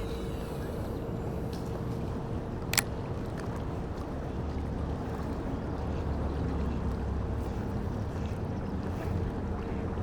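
Steady low rumble and hiss of wind and water with a faint steady hum, and a single sharp click about three seconds in.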